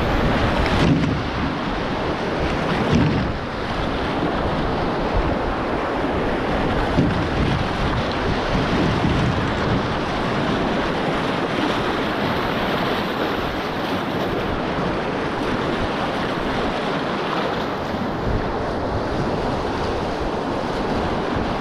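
Whitewater rapids rushing steadily around a canoe running through them: a continuous roar of churning river water, with wind buffeting the microphone.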